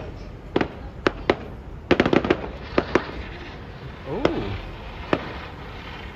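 Aerial fireworks bursting: sharp bangs at irregular intervals, with a rapid cluster of cracks about two seconds in.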